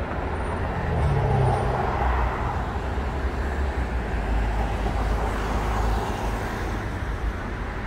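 City road traffic: cars driving past with a steady rush and a low engine rumble, loudest about a second in.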